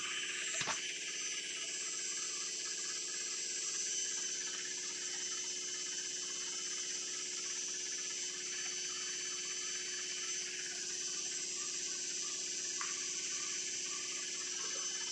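IFB washing machine in its final spin, the drum turning at a steady high speed with a whirring hiss and a steady high-pitched whine.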